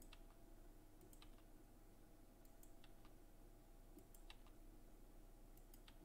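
Near silence with faint, scattered clicks of a computer mouse and keyboard, about ten spread unevenly, over a low steady hum.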